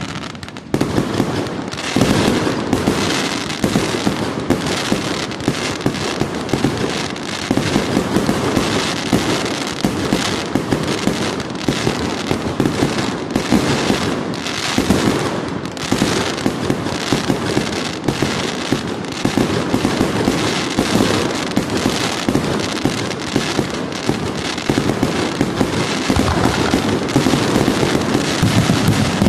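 Aerial fireworks shells bursting in rapid succession, the bangs and crackle overlapping into a near-continuous barrage.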